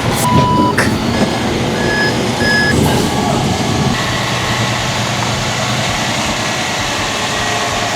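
Roll-off truck backing up: its reversing alarm gives a few short beeps in the first three seconds over the steady running of the truck's engine.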